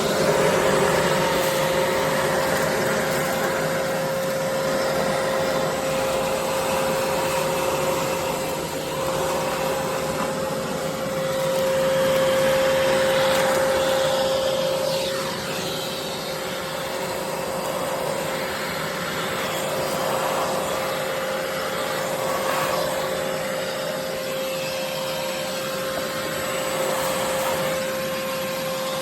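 ReliaRoads 20V cordless wet/dry shop vac running steadily: a constant motor whine over a rushing airflow hiss, the level swelling and dipping a little as it works.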